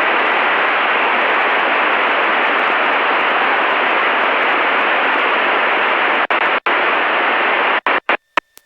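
Loud, steady static hiss on the aircraft intercom audio, heard through a Spider wireless headset that is not working with the Cessna 152's comm system. The hiss cuts out in several quick dropouts near the end.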